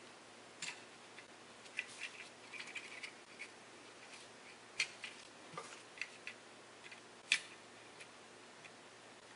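Irregular light clicks and taps of small parts being handled: the plastic rotary-switch housing and circuit board of an opened Fluke 87 multimeter, and needle-nose pliers. The sharpest click comes a little past seven seconds in.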